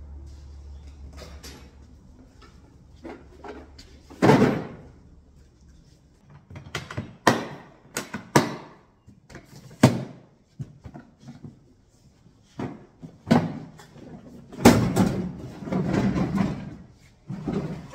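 Hard plastic tool cases set down and shoved into a pickup truck's steel bed: a series of sharp knocks and thumps, the loudest about four seconds in and again near fifteen seconds, followed by a longer spell of scraping and knocking.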